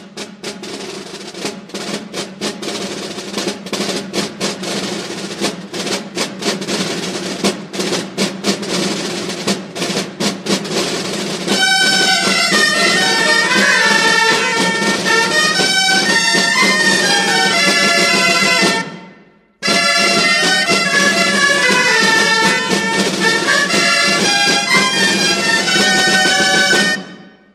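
Festive band music: drumming over a steady low note, then a loud melody on wind instruments with drums from about eleven seconds in. The music breaks off briefly and returns, then fades near the end.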